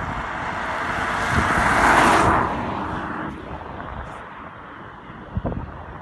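A car driving past on an asphalt road: its tyre and engine noise swells to a peak about two seconds in, then fades away.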